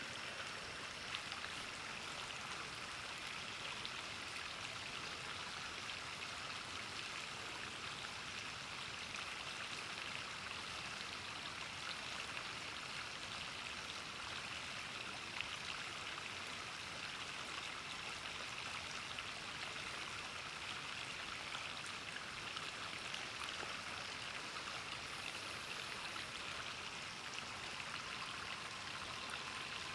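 River water flowing steadily, a constant even rushing, with a few faint clicks now and then.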